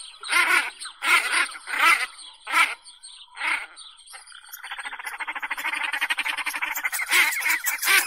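Domestic goose honking: a string of short calls, roughly one every three-quarters of a second, then a fast rattling run of pulses for about two seconds, with more calls near the end.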